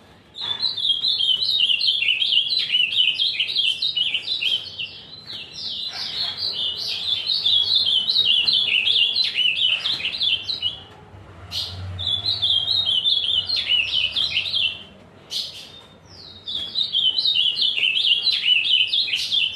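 Ultramarine grosbeak (azulão) singing at length: long runs of quick, high, sliding warbled notes, broken by short pauses about 11 seconds in and again about 15 seconds in.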